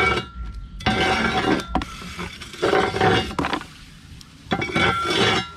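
Long-handled metal ember rake scraping hot embers and charcoal across the brick floor of a wood-fired oven and pulling them out, in three strokes about two seconds apart, with clinking of charcoal against metal.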